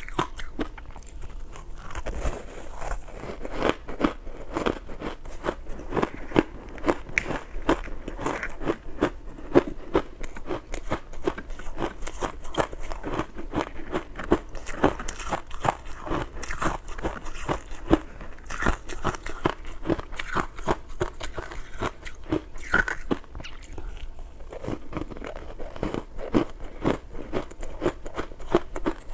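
Close-miked crunching and chewing of powdery ice dusted with matcha powder, a dense run of irregular crunches bite after bite.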